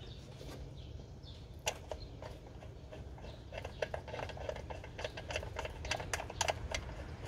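Irregular metallic clicks and clinks of hand tools and bolts being worked while fitting the bolts of a belt-tensioner damper, coming quickly and close together over the second half.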